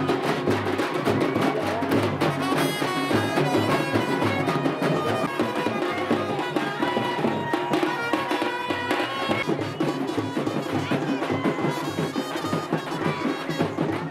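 Traditional music: drums beating a steady rhythm, with a wind instrument playing a melody over them.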